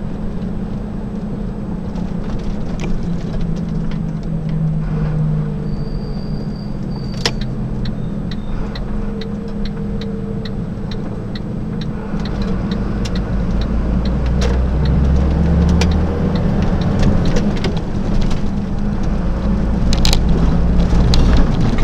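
Delivery lorry's diesel engine running while driving in city traffic, heard from inside the cab, with scattered cab rattles and clicks. The engine gets louder about halfway through as the lorry pulls on.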